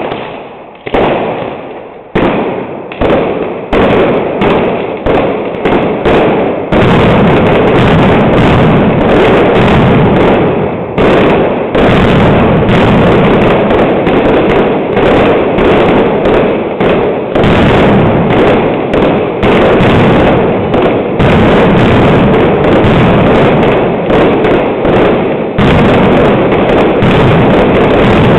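Mascletà firecrackers going off: separate bangs two or three a second at first. About a quarter of the way in they run together into a dense, continuous barrage of explosions that keeps pulsing.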